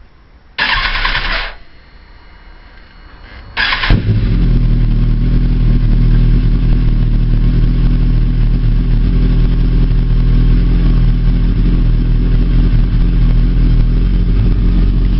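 A 2006 Kawasaki Ninja ZX-10R's inline-four engine is cranked by its starter: a first short burst of cranking about half a second in does not catch. A second crank at about three and a half seconds fires the engine, which then idles loudly and steadily.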